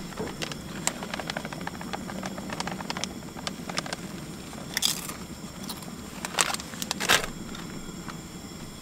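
Camp-stove cooking: a run of light rustling clicks as shredded cheese is shaken from a bag onto a tortilla in a cast iron pan, then a few sharper clanks of a utensil against a skillet of chicken about five, six and a half and seven seconds in. A steady low hum runs underneath.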